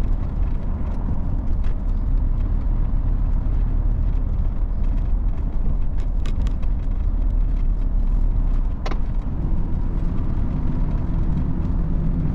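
Heavy truck's diesel engine and road noise heard from inside the cab while driving at highway speed: a steady low rumble, with a few light clicks.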